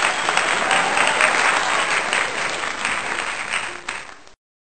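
Crowd applause: dense, even clapping that thins slightly near the end and cuts off abruptly about four seconds in.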